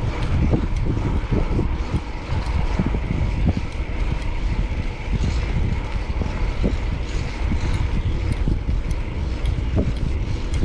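Wind rumbling on the microphone while riding a bicycle through city traffic, with steady traffic noise underneath.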